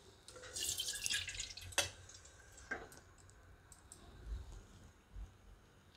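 Water poured into a wok of potato curry, a short splashing trickle about half a second in, followed by two light clicks.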